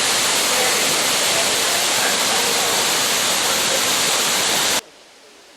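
Rushing water, a steady loud rush like a stream or small waterfall, which cuts off suddenly near the end.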